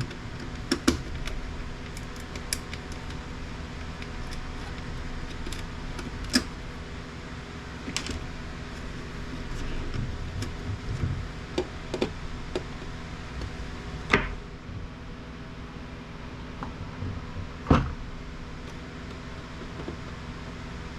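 Scattered clicks and knocks of plastic printer parts being handled and set down during disassembly, over a steady low hum. The sharpest knocks come about a second in, around the middle, and twice in the second half.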